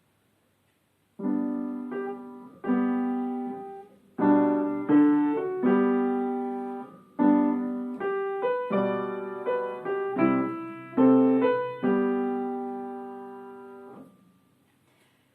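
A piano playing a short piece softly, at piano dynamic: struck chords and melody notes that each ring and die away. It starts about a second in, and the last chord fades out near the end.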